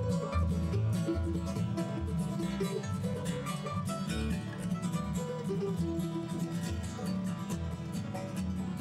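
Live bluegrass band picking an instrumental break: mandolin, five-string banjo and acoustic guitar playing together over a steady bass line.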